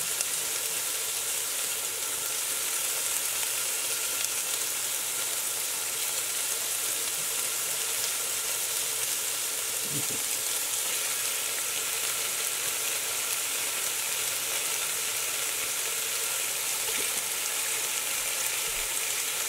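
Crumbled turkey Italian sausage sizzling steadily in hot olive oil in a Dutch oven as it begins to sear, with more raw pieces dropped in by hand.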